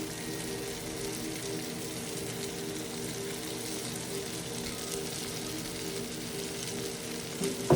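Food sizzling in a hot frying pan as a steady hiss, over a low steady hum. A single sharp knock near the end is the loudest sound.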